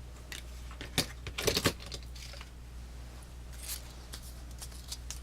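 Small metal Swiss Army knives being handled, giving sharp clicks and clinks: one click about a second in, a louder cluster just after, then lighter scattered clicks over a low steady hum.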